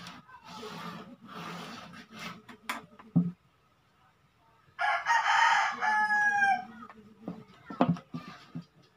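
A rooster crows once, about five seconds in: a loud call of nearly two seconds that trails off falling in pitch. Before it come short scratchy strokes of a marker drawn along a PVC pipe and a few sharp knocks on the tabletop.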